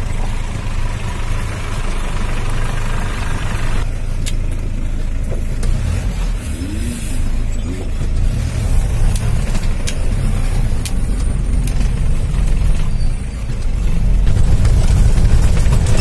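4x4 jeep driving off-road over a rough stony dirt track: steady low engine and ride rumble throughout, with a few sharp knocks about four, eight and eleven seconds in.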